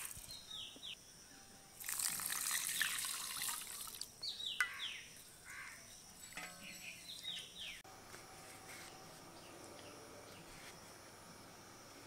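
Water poured into a steel bowl of rice to soak it, running for about two seconds, followed by several short falling chirps.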